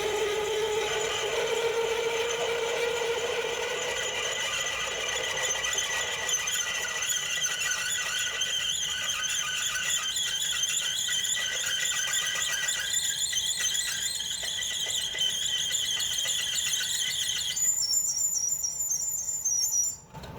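Lathe cutting tool squealing as it cuts a bevel into 304 stainless steel: a steady high-pitched squeal of several tones that shifts in pitch near the end and then stops abruptly.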